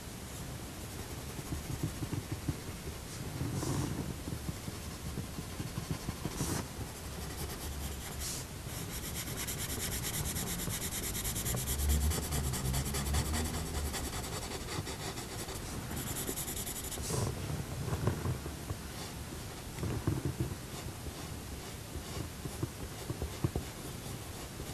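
Coloured pencil scratching across drawing paper in short strokes, laying in dark brown along the curls of hair. In the middle stretch the strokes come fast and close together, as quick hatching.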